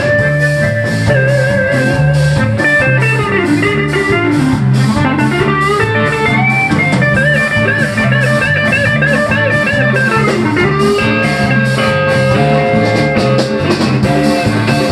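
A blues-rock band playing: an electric guitar carries the lead with bent, wavering notes over bass and a drum kit keeping a steady beat on the cymbals.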